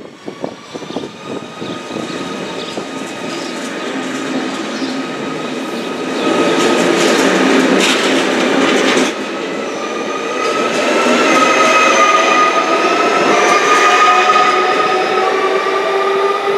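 A ZSSK class 671 double-deck electric multiple unit pulls away and passes close by. Wheel and rail noise is loudest from about six to nine seconds in, then the traction motors' whine climbs steadily in pitch as it accelerates.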